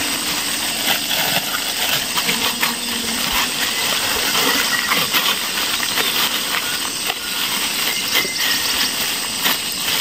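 Burning slash and brush on a cleared hillside: a fire crackling with many sharp pops over a steady hiss.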